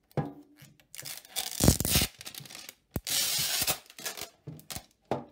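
Protective plastic film being peeled off a new modem's casing: two long tearing rips, the first about a second in and the second about three seconds in, with a knock of the unit being handled during the first.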